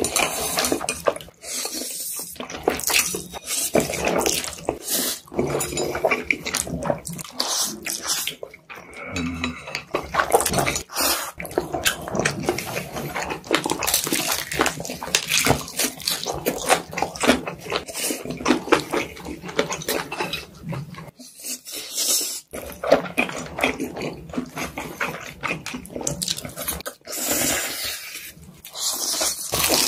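Close-miked eating sounds: black bean noodles being slurped and chewed, with crunching bites of fried chicken, a steady run of wet mouth clicks and smacks.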